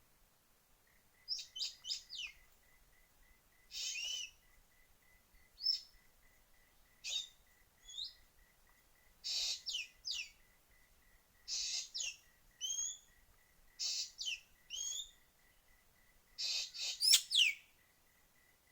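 Bird calls in short separate bouts: harsh rasping notes mixed with quick whistled slurs, about a dozen calls in all. A faint, steady, rapidly pulsing tone sits underneath.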